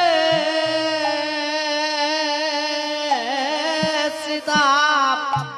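Bengali kirtan music: a male singer holds and bends a long note over a steady drone. A hand drum beats through the first second or so, then only a few single strokes follow, and the music thins near the end.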